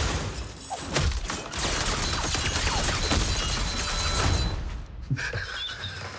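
Dense action sound effects: a continuous run of crashes and heavy impacts with low rumble, thinning out about five seconds in. Near the end a man starts laughing.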